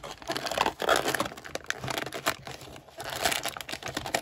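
Doll packaging crinkling and rustling as it is handled and unpacked, with irregular sharp clicks and scrapes.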